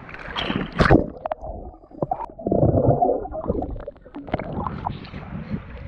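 Sea water gurgling and sloshing over an action camera's microphone as it dips under the surface. The sound is muffled, with sharp splashes about a second in and a louder churning of water around the three-second mark.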